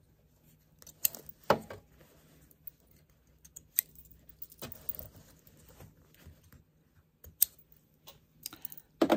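Scissors snipping sewing threads and a quilted fabric bowl being handled and pulled from under a sewing machine: a few sharp separate snips and clicks with soft fabric rustle between them.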